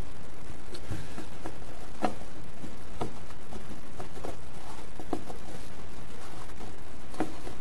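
Scattered light clicks and knocks of a small folding pocket knife and its metal tools being handled, about six of them at irregular spacing, over a steady background hiss.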